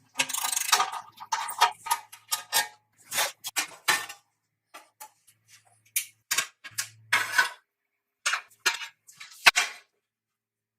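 Irregular metallic clicks, taps and scrapes of hand tools working on motorcycle parts, with a faint low hum coming and going in the first half.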